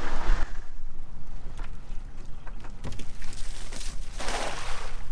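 Cast net thrown from a boat: a few light knocks, then a brief splash about four seconds in as the net lands on the water, over a steady low rumble.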